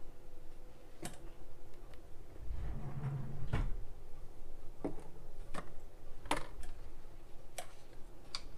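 Scattered light knocks and clicks of small kitchen items (a measuring spoon, a small bowl and a bottle) being handled and set down on a countertop, with a dull low rumble around three seconds in.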